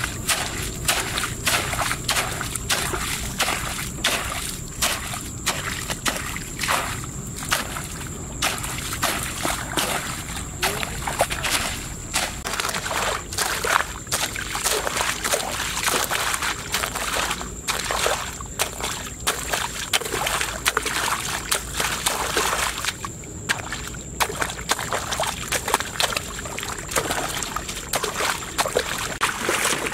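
A hoe striking and scraping wet ground with many quick repeated strokes. At first it chops grass and mud, then it sloshes and splashes through muddy water in a shallow hole.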